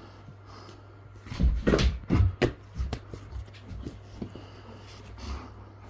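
Rottweiler playing with a ball: a quick cluster of thumps and knocks about one and a half to two and a half seconds in, then a few lighter knocks.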